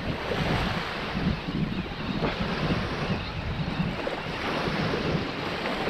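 Wind buffeting the microphone over small waves washing against the rocky shore.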